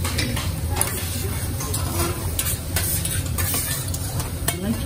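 Metal spatulas scraping and clicking irregularly on a hot steel teppanyaki griddle, over a steady sizzle of food.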